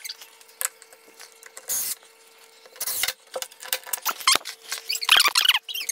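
Scattered clicks, rustles and short squeaks from handling a curtain-rod mounting bracket and screws and fitting the bracket to the wall, with a cluster of squeaks about five seconds in.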